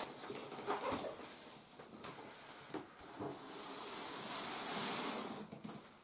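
Large cardboard microwave shipping box being tipped and turned over on a wooden floor: a few knocks of the box against the floor, then a long scraping rustle of cardboard that swells around four to five seconds in.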